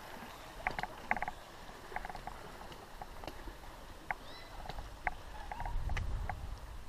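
Mountain bike rattling over a trail: a scattered run of sharp clicks and knocks, with a low rumble about five and a half seconds in.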